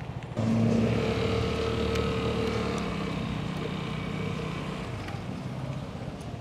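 Husqvarna Svartpilen 401's single-cylinder engine opening up under throttle about half a second in, then its pitch easing slowly down as the revs drop.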